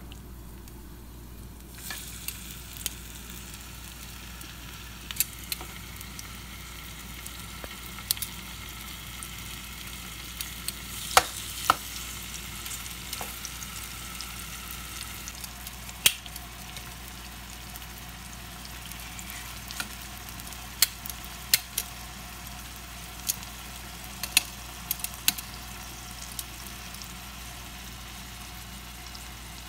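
Marinated chicken pieces sizzling in hot oil in a nonstick frying pan as they are laid in one by one, a steady sizzle with scattered sharp clicks and pops.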